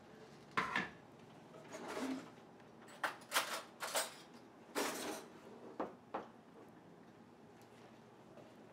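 A plastic blender jar and a drinking glass handled and set down on a countertop: a string of clunks and knocks spread over about six seconds.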